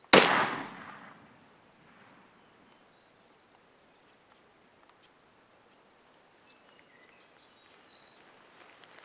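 A single 20-gauge shotgun blast right at the start, the report dying away over about a second, as the turkey is shot. Songbirds chirp faintly near the end.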